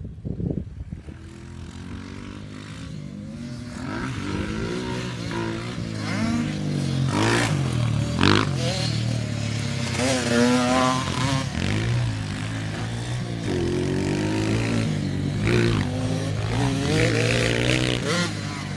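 A 65cc youth dirt bike's engine revving up and down as it is ridden round a dirt track, its pitch climbing and dropping again and again with the throttle and gear changes. It gets louder from about four seconds in.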